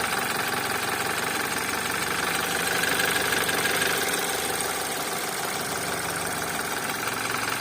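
BMW N20B20 2.0-litre turbocharged four-cylinder engine idling in Drive with a steady knock, shortly after a cold start; the cause of the knock is not yet clear to the owner.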